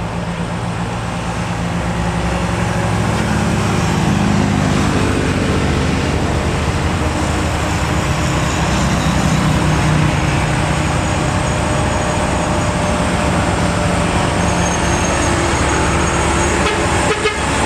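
Diesel engines of a convoy of loaded light trucks running steadily as they approach and pass, growing louder over the first few seconds, mixed with road traffic.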